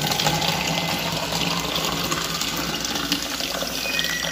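Water pouring in a steady stream from a coin-operated water vending machine's dispenser, filling one cup. A thin high tone comes in near the end.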